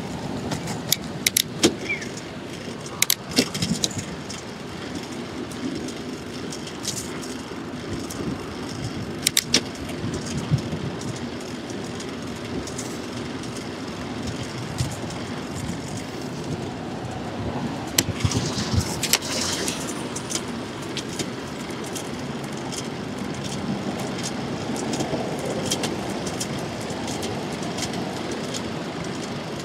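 Bicycle riding through city traffic, heard from a handlebar-mounted camera: a steady rush of road, wind and passing cars, with sharp rattles and clicks from the bike and mount jolting over the road surface. The rattles come thickest in the first few seconds and again about 18 seconds in.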